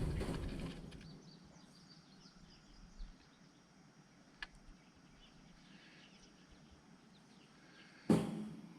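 Faint birds chirping throughout, over handling noise as a wire cage is clipped together: a rustle fading at the start, a single sharp click about halfway through, and a sudden louder clatter of wire near the end.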